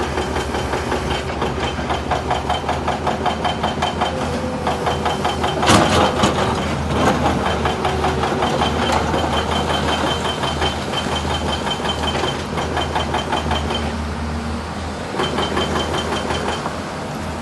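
Sany 220 hydraulic excavator's diesel engine running with a fast steady beat, with a high whine that comes and goes. A loud sudden clatter about six seconds in.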